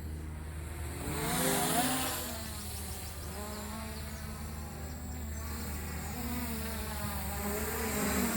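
MJX Bugs 3 quadcopter's brushless motors and propellers buzzing in flight, the pitch wavering as the throttle changes. It grows louder about a second in as the drone passes close, eases off, then swells again near the end.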